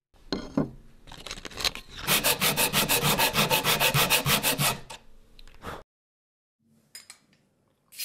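A hand tool rubbed back and forth on a workpiece: a few scattered scrapes, then a run of quick, even rubbing strokes, about eight a second, for nearly three seconds, which then stop.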